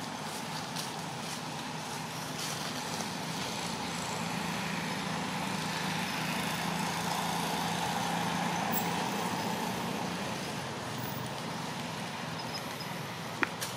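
Road traffic: a passing motor vehicle's engine and tyre noise that builds to a peak about eight seconds in and then fades, with a sharp click near the end.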